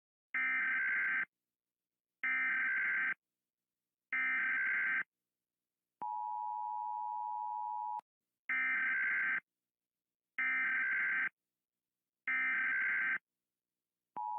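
Electronic emergency-alert alarm: three short buzzy beeps about a second apart, then a steady two-second tone, with the whole pattern played twice. It is the attention signal ahead of a flood warning message.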